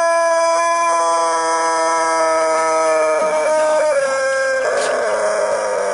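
A rooster's very long, drawn-out crow held on one siren-like note that slowly sinks in pitch, turning rough and breaking up about four and a half seconds in.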